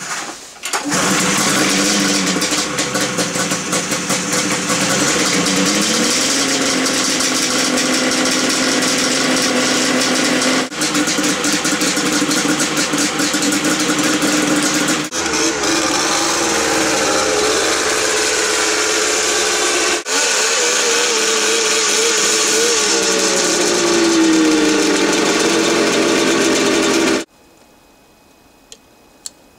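Polaris XLT 600 snowmobile's two-stroke engine starting up and running, its pitch wavering and gliding up and down, with the engine freshly rebuilt with a new head gasket and run to burp air out of the refilled cooling system. The engine sound cuts off abruptly near the end.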